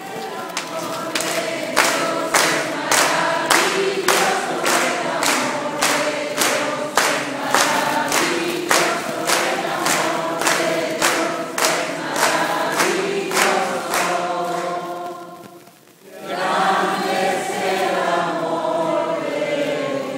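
Church congregation singing together and clapping in time, about two claps a second. Near the end the singing breaks off briefly, then resumes without the clapping.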